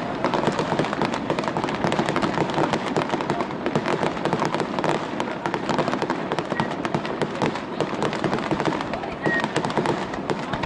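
Fireworks display: a dense, continuous crackle of many rapid pops from bursting shells.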